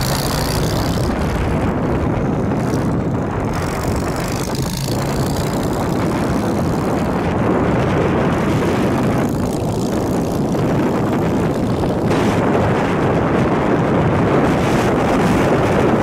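Motorcycle riding at road speed: steady engine and wind noise rushing over the bike-mounted microphone.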